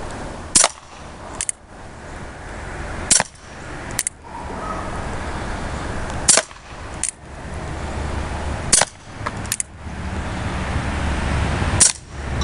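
Colt Single Action Army CO2 BB revolver fired five times, a shot every two and a half to three seconds, each sharp pop followed just under a second later by a fainter click of the BB striking the target.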